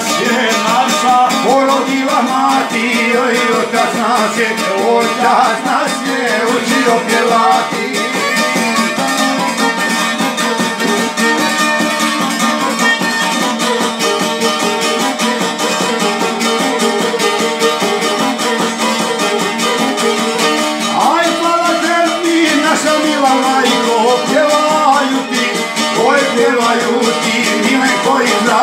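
Violin and a long-necked plucked lute playing a folk tune together, with a man's singing voice over them at the start and again from about two-thirds of the way through; the stretch in between is instrumental.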